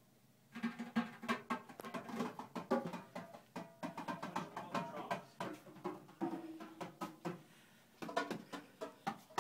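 Hand drums being struck in quick, irregular hits, each with a short ringing tone, with a brief lull near the end.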